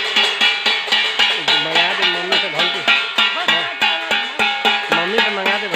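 Stainless-steel thalis (dinner plates) beaten with spoons by many people, a continuous metallic clanging in an even rhythm of about three beats a second with ringing between strikes. Voices rise and fall over the clanging.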